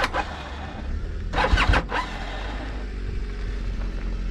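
Vehicle engine running at idle, a steady low rumble, with a sharp click at the start and a brief louder burst of sound about one and a half seconds in.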